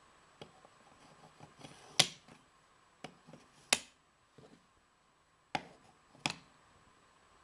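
Painted wooden blocks knocking against each other and the wooden train car as they are stacked onto its pegs: four sharp wooden clacks with lighter taps between.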